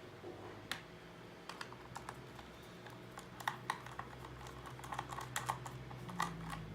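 Irregular light clicks and taps of hand tools and small parts on a laptop's plastic case, as screws are worked out during disassembly, over a low steady hum.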